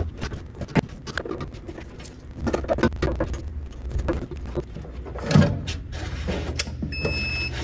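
Hands working car wiring with a wire stripper: irregular small clicks and rustles, with one louder knock a little past halfway. Near the end a Snap-on digital multimeter gives a short beep as its dial is turned.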